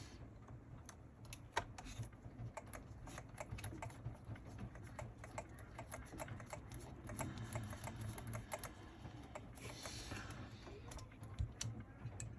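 Faint, irregular light clicking and tapping of a small hand tool and metal and plastic parts while the front axle screw of an RC truck is undone.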